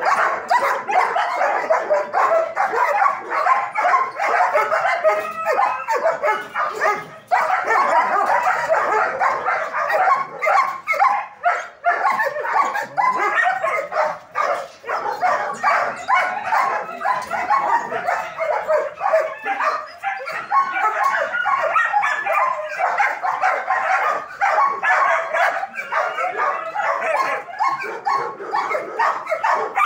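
German shepherds in wire kennel runs barking and yipping over one another, a continuous din of overlapping barks with no pause.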